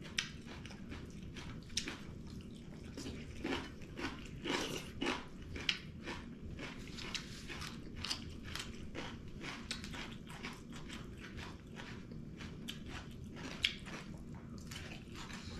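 Close chewing and biting of food, with many irregular crisp crunches and wet mouth clicks as raw cucumber and shredded cabbage are eaten.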